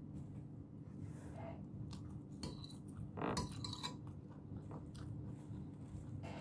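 Faint chewing with a few light clinks of a metal spoon on a plate, over a steady low hum.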